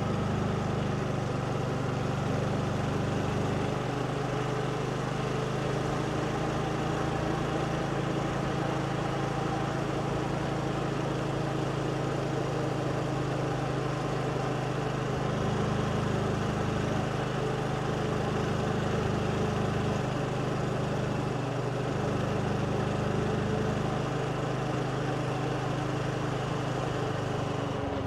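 Motorbike engine running steadily at an even speed while riding, with road and wind noise.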